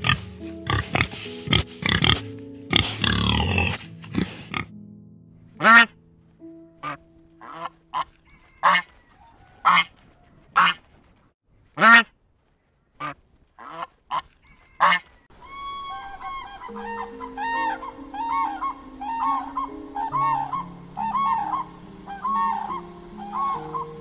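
Animal calls over background music: a dense run of rough, overlapping calls in the first few seconds, then about a dozen separate short calls roughly a second apart, then quick repeated chirping calls over steady music notes in the last eight seconds.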